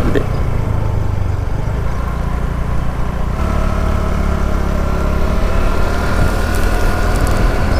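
Motorbike engine running steadily while riding along the road, with a steady low rumble; its tone shifts a little past three seconds in.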